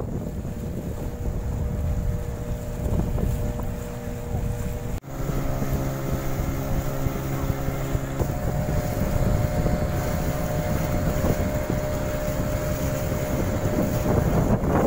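Motorized outrigger boat engine droning steadily, with heavy wind buffeting on the microphone and the rush of water. About five seconds in, the sound drops out for an instant and comes back with a deeper, stronger engine hum for a few seconds.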